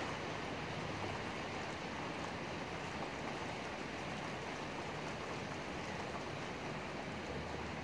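Steady rain falling, an even hiss that holds without change.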